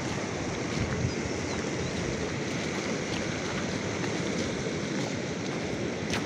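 Mountain stream rushing over rocks: a steady, even rushing noise.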